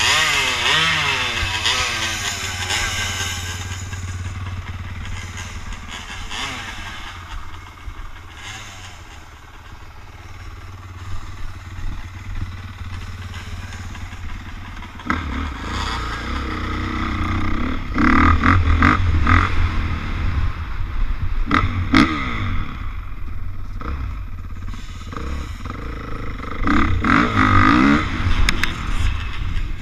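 Dirt bike engine revving up and down, settling to a quieter idle, then pulling away with the throttle opened harder a couple of times.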